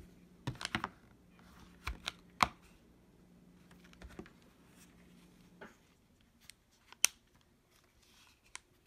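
Scattered clicks and knocks of a plastic power bank being handled and picked up off a wooden desk. The two sharpest clicks come about two and a half and seven seconds in.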